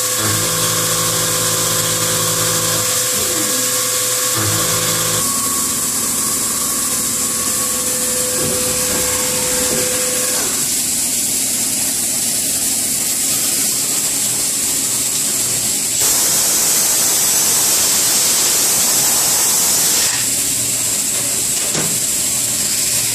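A Kitamura Mycenter 1 vertical machining center milling an aluminium block: a steady spindle whine with the cut, which stops about ten seconds in. After that the hiss of flood coolant spraying takes over, louder for a few seconds just past the middle.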